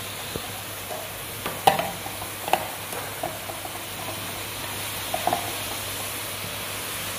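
Onion-tomato masala sizzling in a non-stick wok as a slotted metal spatula stirs it, with a few sharp scrapes and taps of the spatula on the pan, the loudest about one and a half to two and a half seconds in.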